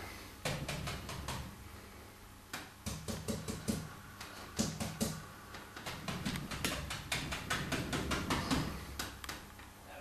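Paintbrush dabbing oil paint onto a canvas on an easel: a long run of irregular soft taps and clicks as the bristles strike the surface, over a faint low hum.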